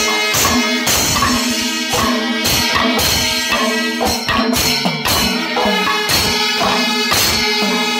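Panchavadyam, the Kerala temple percussion ensemble: fast, dense strokes of timila and maddalam drums with ilathalam cymbals, over a held pitched tone.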